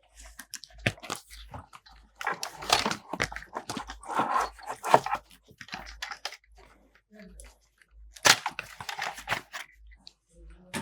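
Handling noise from an old camera being picked up and worked: irregular clicks with stretches of rustling and crinkling.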